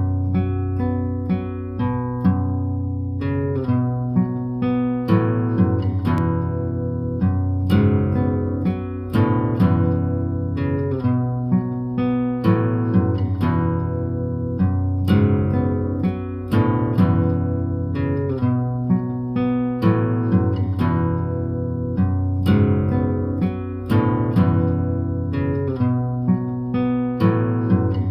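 Background music: a plucked-guitar melody of quick, evenly spaced notes over a sustained bass line, at a steady tempo of about 126 beats a minute.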